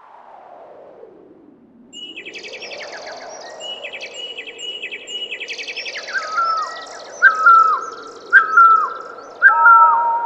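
A soft swooshing sweep, then birds chirping in quick trills. From about six seconds in, a loud whistled call that slides downward joins them and repeats about once a second.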